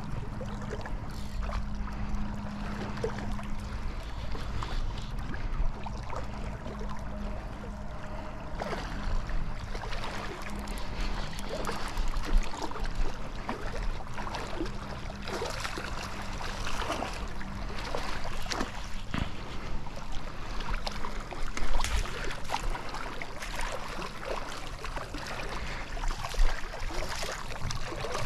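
River water rushing steadily, with scattered short clicks and knocks through it.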